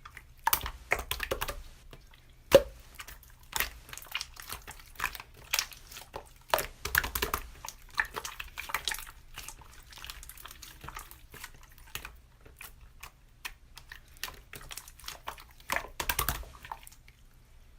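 Slime being squished and poked by hand: irregular sticky clicks and small wet pops, some sharp and loud, stopping shortly before the end.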